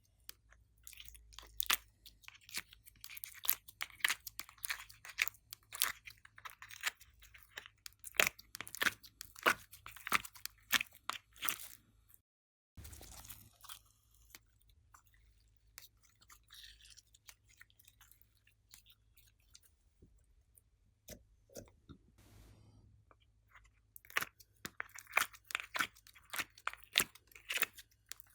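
Glossy slime being squished and mixed, with dense sticky crackles and clicks of popping air pockets. The crackling breaks off briefly a little under halfway, runs softer for a while, then comes back thick and loud near the end.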